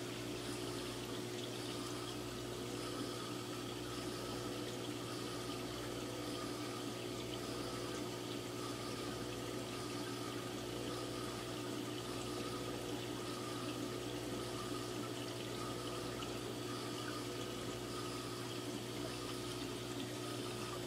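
Reef aquarium's water circulation running: a steady low pump hum under a constant wash of moving water.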